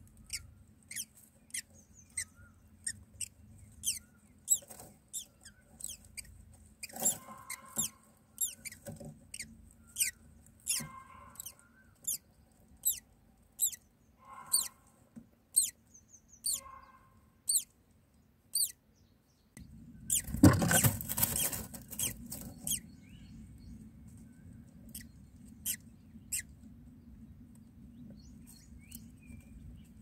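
Common myna nestlings begging with thin, high squeaks, each a quick downward sweep in pitch, one or two a second. A loud burst of noise lasting about two seconds comes about two-thirds of the way through, and after it the squeaks come more sparsely.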